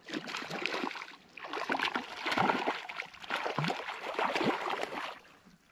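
Repeated irregular water splashing as a hooked cutthroat trout is brought in and landed, in two spells with a short lull about a second in.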